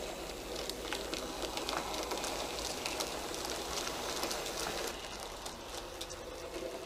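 N gauge model goods train, a Jinty tank engine hauling vans and a brake van, running along the track: a quick, uneven patter of small clicks from the wheels over the rail joints. The clicks thin out about five seconds in as the train draws away.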